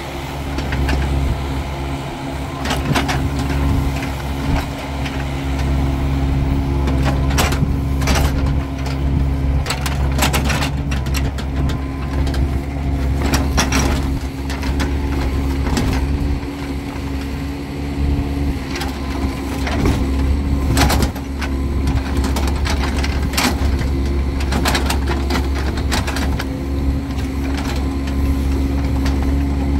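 Mini excavator's diesel engine running steadily under load as the bucket digs and scoops wet, heavy mud, with frequent irregular knocks and clanks from the bucket and arm.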